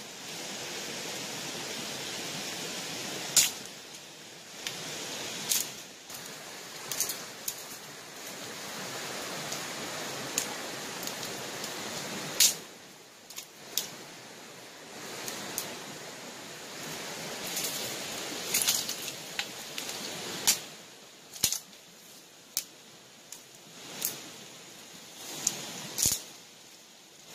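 Rustling through dry leaves and forest undergrowth, rising and falling, with a dozen or so sharp snaps and taps of twigs and a stick scattered through it.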